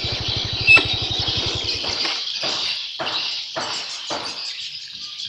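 A small engine putters steadily and cuts out about two seconds in. After it, footsteps land about twice a second over a steady high hiss of insects.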